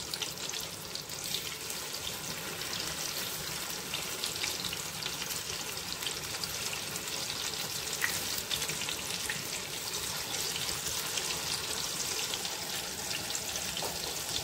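Whole stuffed small brinjals shallow-frying in hot mustard oil in a kadhai: a steady sizzle with dense, fine crackling pops.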